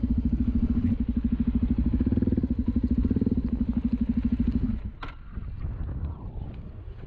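Enduro motorcycle engine running with a fast, even pulsing beat, then dropping away about four and a half seconds in to a quieter, uneven rumble.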